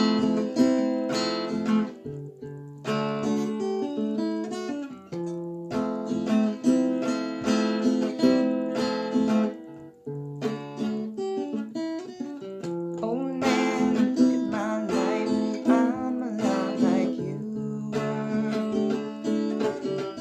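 Craven Model 265 Songbird tenor guitar, a four-string acoustic tenor, playing a rhythmic strummed and picked chord accompaniment as a song's instrumental introduction.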